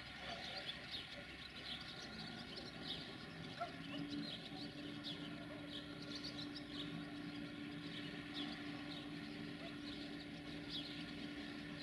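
Small birds chirping in quick, repeated short calls. A steady low hum comes in about four seconds in and holds.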